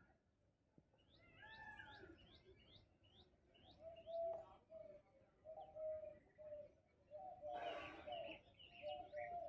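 Faint background birdsong: short rising chirps repeated over the first few seconds, then a run of lower, evenly spaced short notes. A brief burst of noise comes about three-quarters of the way through.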